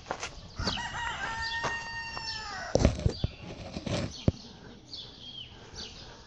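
Alpaca giving its alarm call: one long, high-pitched cry held for about two seconds that falls away at its end, with shorter cries before and after it. A few sharp knocks come in the middle.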